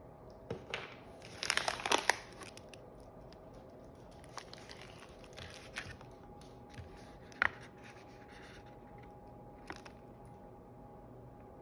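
Packaging rustling and tearing: a burst of crackly crinkling about a second and a half in, then scattered light clicks and taps.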